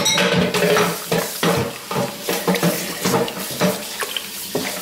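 Chopsticks whisking a runny banh xeo batter in a stainless steel bowl: quick, rapid strokes clinking and scraping against the metal, with the batter sloshing.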